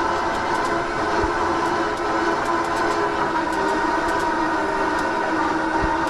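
Battery-powered commercial lawn mower cutting grass: its electric blade motors give a steady whine made of several held tones over an even hiss.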